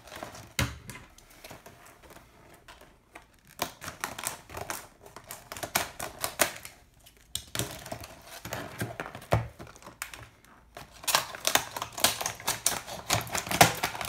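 Scissors cutting into a stiff plastic clamshell blister pack, with clicking and crackling of the plastic as it is handled and snipped. The clicks are sparse at first and come thick and fast in the last few seconds.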